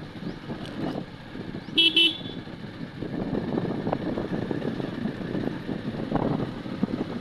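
A vehicle horn toots twice in quick succession about two seconds in, over a steady rumble of road noise.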